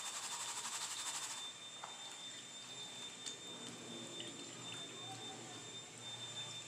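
Black plastic gold pan shaken under water in a tub of muddy water, the paydirt rasping in a quick rhythm for about a second and a half. It then drops to faint water sloshing with a few small ticks.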